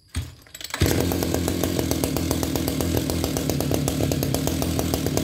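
Kioritz RM341 brush cutter's 37 mm two-stroke engine pull-started, catching under a second in, then running steadily at a low idle with even firing strokes.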